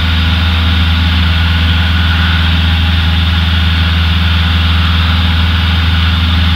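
Cessna 172's piston engine and propeller running steadily in flight, a loud, unchanging drone heard inside the cabin.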